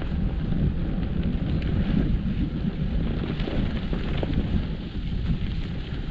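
Wind noise buffeting the microphone while riding a bicycle along a rough dirt track, with a few light clicks mixed in.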